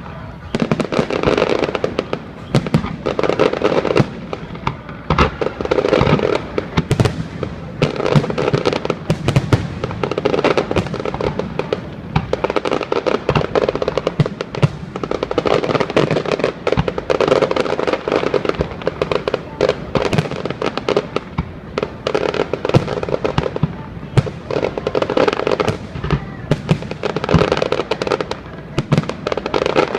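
Fireworks display: a dense, unbroken run of shell bursts, with many sharp bangs and crackles following close on one another.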